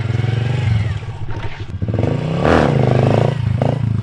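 Small pit bike engine running hard under throttle while the bike is held in a wheelie, its pitch rising and falling as the throttle is worked, louder in the second half.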